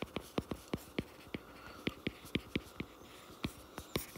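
Stylus tapping and ticking on a tablet screen while handwriting: an irregular run of sharp clicks, about four or five a second, with a pause of about a second past the middle.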